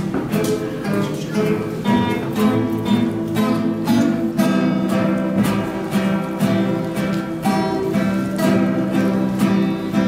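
Three acoustic guitars played together, strumming chords at a steady pace of about two strokes a second.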